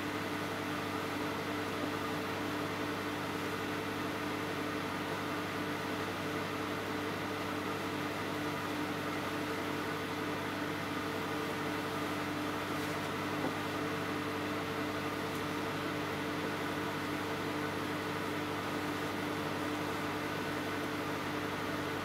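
Microwave oven running mid-cycle: a steady hum with several fixed tones over fan noise, and one small tick about halfway through.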